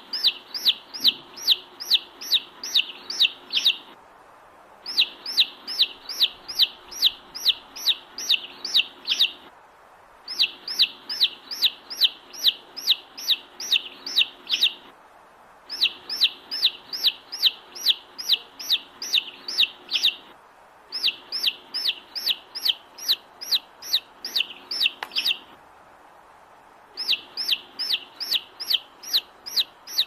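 Baby chick peeping: runs of high, falling cheeps, about three a second, in bouts of about four seconds with short pauses between them.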